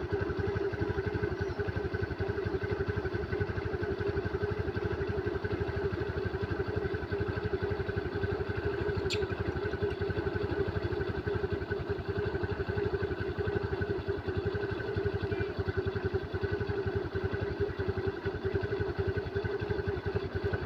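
A vehicle engine idling steadily, with an even, rapid firing pulse and no change in speed.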